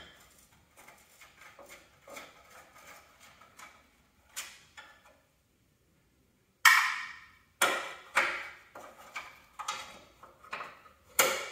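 Hand tool working the bolts under a garden tractor's steel fender: faint scattered metal clicks, then after a short gap a string of loud sharp knocks about every half second, each with a short ringing tail.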